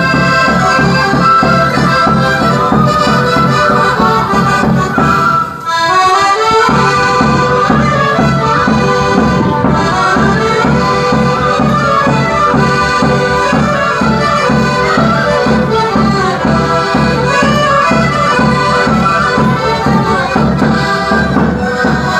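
Andean folk band playing Qoyacha dance music: a busy melody over a steady beat. The music dips briefly about five and a half seconds in, then carries on.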